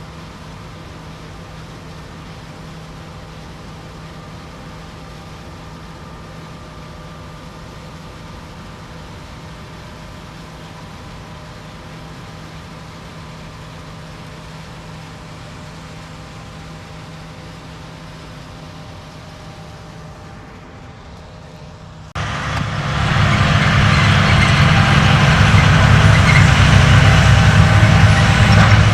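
Heavy harvest machinery engines running steadily with a low, even hum. About 22 seconds in, the sound jumps abruptly to a much louder, closer machine: a strong low engine drone under a loud rushing noise.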